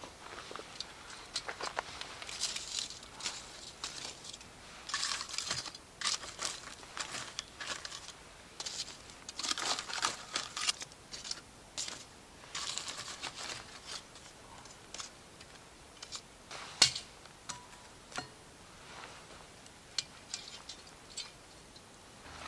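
Campfire being tended: irregular scraping, rustling and clicking of split wood and embers being shifted, with one sharper click about seventeen seconds in.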